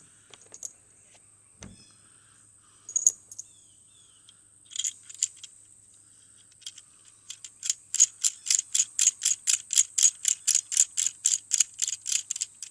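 Metal lightsaber hilt parts clicking and tapping as they are handled, then a fast, even run of sharp clicks, about five a second, through the second half, as a metal section of the hilt is screwed back on.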